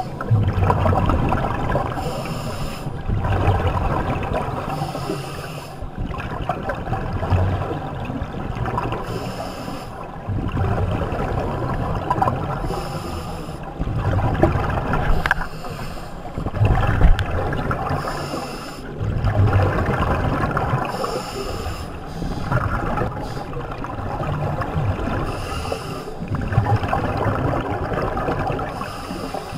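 Scuba diver breathing through a regulator, heard underwater: a hiss on each inhale and a low rumble of exhaled bubbles, repeating about every three to four seconds.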